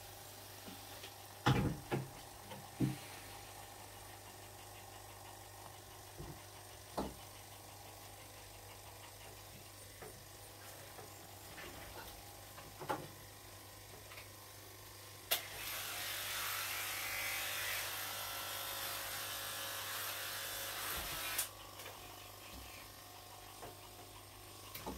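A few sharp knocks and clicks of handling, then a small electric motor runs with an even whirring hiss for about six seconds, starting and stopping abruptly. A steady low mains hum runs underneath.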